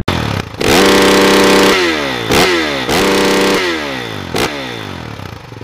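Dirt bike engine revved twice, each time held high and then falling back toward idle, with a sharp click in the second half.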